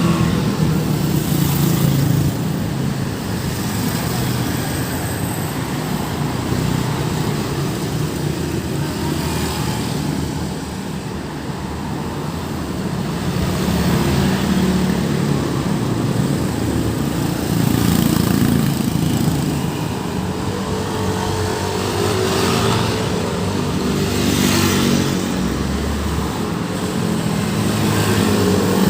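Busy road traffic: car and motorcycle engines running as vehicles pass, a continuous engine drone that swells and rises and falls in pitch with each pass.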